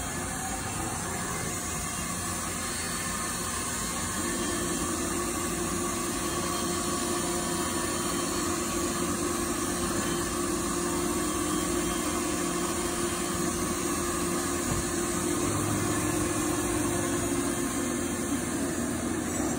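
CNC mill-turn machine running a cut inside its enclosure: steady machine noise, with a steady hum joining about four seconds in.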